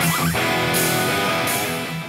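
Background music led by a strummed guitar.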